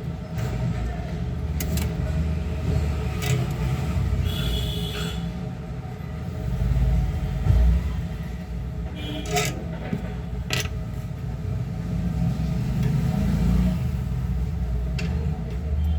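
Steady low rumble with a few sharp clicks scattered through it.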